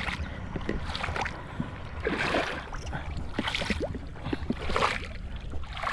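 Shallow muddy water sloshing and splashing in repeated surges, about every second and a half, as hands grope through it for fish. A steady low rumble lies beneath.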